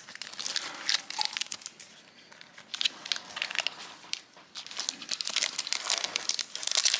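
Plastic and foil trading-card packaging crinkling as it is handled, in irregular crackles that get louder near the end.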